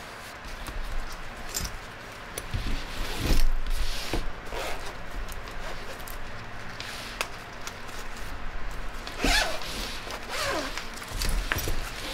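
Zipper on a canvas travel bag being pulled open in several separate pulls, with the heavy fabric rustling as the compartment is handled.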